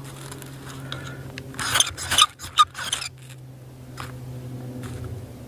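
Ferrocerium rod scraped hard with a steel striker over wood shavings to throw sparks: four quick rasping strikes about two seconds in, then two faint clicks.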